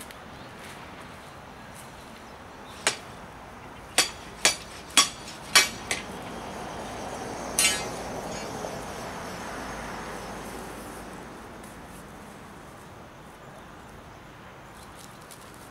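A series of about six sharp clicks and knocks, then a louder, ringing metallic clink a little past the middle, as hand tools are handled. After the clink, a soft rushing noise swells and fades.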